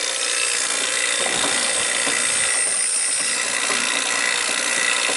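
Refrigerant rushing out of a newly installed heat pump's opened service valve into the evacuated line set: a steady hiss that fills the line set after the vacuum.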